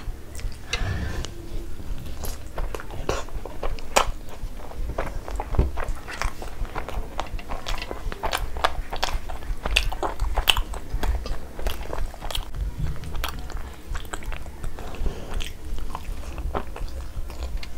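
Close-miked eating sounds of butter chicken curry eaten by hand: wet chewing and lip smacks in many short, irregular clicks, with fingers squishing through the gravy on the plate.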